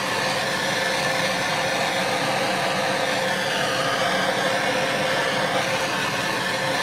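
Handheld gas torch running with a steady hiss from its blue flame, passed over a wet acrylic pour to bring the silicone in the paint up to the surface.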